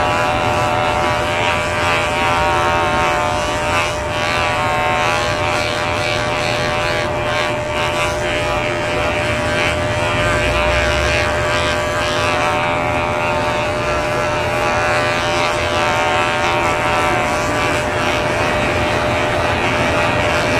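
Silicone electric facial cleansing brush switched on at a raised intensity, its vibration motor giving a steady, continuous buzz.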